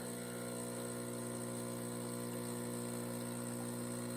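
Gaggia Classic Evo Pro espresso machine's vibratory pump running, a steady humming buzz as it pushes water through the group head to brew a shot.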